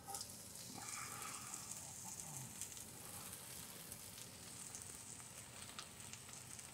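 Shredded coleslaw mix sizzling in oil in a stainless steel skillet: a faint, steady frying hiss, with a few light clicks from stirring.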